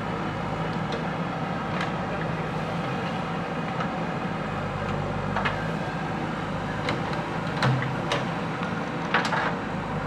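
JCB 3DX backhoe loader's diesel engine running steadily, with a handful of short sharp knocks and clicks over it, the loudest in the last few seconds.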